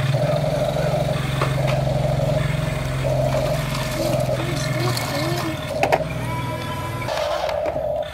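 Remote-control toy excavator working its arm: a steady motor hum under a higher whine that swells and fades again and again, easing off near the end.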